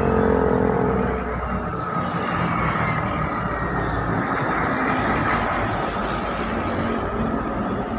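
Heavy truck's engine labouring uphill, its low drone strongest in the first second as it passes, then giving way to a steady rush of road and traffic noise.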